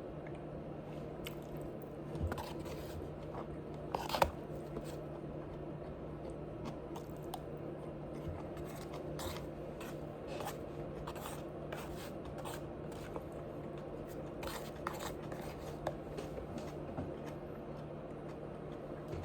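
Close-up sounds of a person chewing food with small crunches and wet mouth clicks, the loudest crunches about four seconds in. A steady low hum runs underneath.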